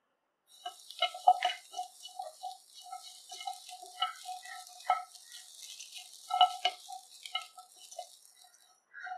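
Silicone spatula stirring and scraping grated coconut, cashews and whole spices around a dry nonstick pan: a rustling scrape with frequent light knocks against the pan. It starts about half a second in and stops just before the end.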